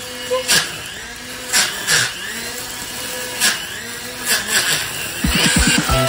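Makita 18V split-motor cordless brush cutter with a tip-saw blade running, a steady motor whine that dips and comes back up in pitch several times, with sharp clicks now and then.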